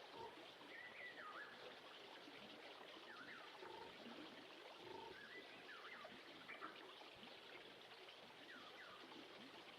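Faint ambient nature recording of a trickling stream, with short chirping calls that dip and rise in pitch every second or two.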